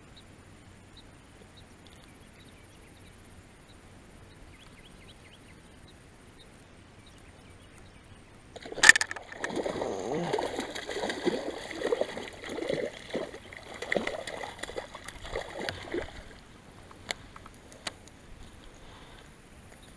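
Hooked largemouth bass splashing and thrashing at the pond surface. A sudden loud splash about nine seconds in is followed by some seven seconds of irregular splashing, then two sharp clicks near the end.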